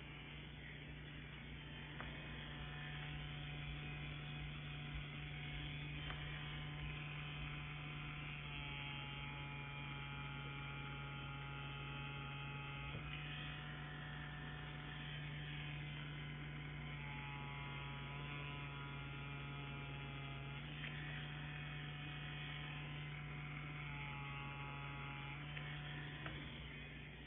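CNC Q5 wireless rotary tattoo pen running with a steady electric hum, its pitch shifting slightly every few seconds.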